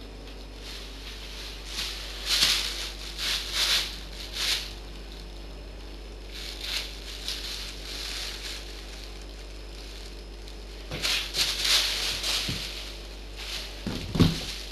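Thin plastic carrier bag rustling and crinkling in three bouts as a cat paws and bites at it, with a dull thump near the end.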